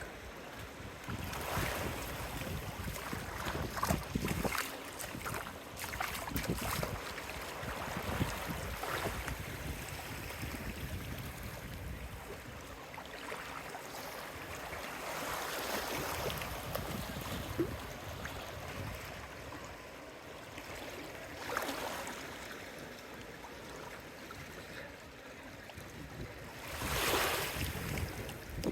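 Small waves washing onto a sandy beach, swelling and fading several times, with wind buffeting the microphone.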